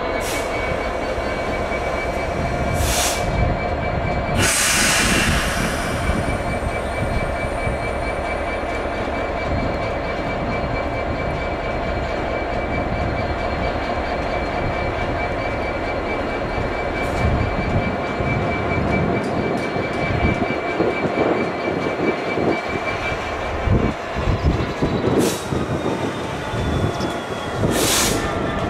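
Class 66 diesel locomotive's EMD two-stroke engine running steadily as it slowly hauls a train of hopper wagons, with several brief hisses along the way. The engine note shifts and drops a little near the end.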